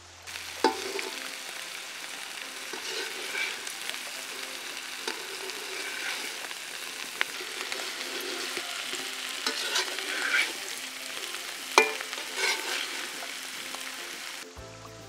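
Spiny gourds frying and sizzling in oil in a pan while being stirred with a perforated metal spoon. A few sharp clinks of the spoon against the pan, the loudest near the end.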